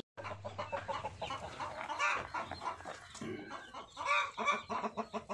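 Sussex hen clucking among newly hatched chicks peeping, with many short calls overlapping.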